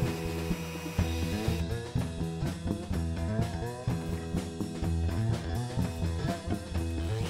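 Background music: a guitar playing over drums, in a blues-rock vein.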